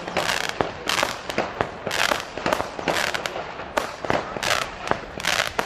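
Fireworks and firecrackers going off in a dense, continuous barrage: several sharp bangs and crackling bursts every second.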